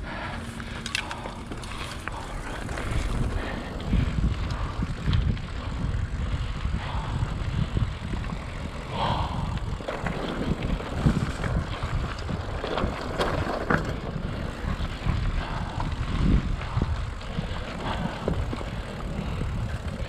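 Mountain bike ridden on a dirt trail: wind rumbles on the microphone, louder from about three seconds in, with scattered knocks and rattles from the bike going over bumps.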